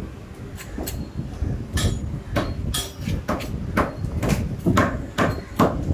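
Sharp, irregular knocks of blades striking a wooden butcher's block as beef is cut and chopped, about a dozen strokes that come faster after the first couple of seconds.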